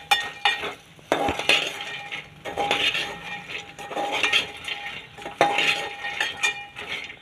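Steel ladle stirring and scraping makhana (fox nuts) around an aluminium pot as they fry in a little ghee. The strokes come about once a second, each with a brief metallic ring.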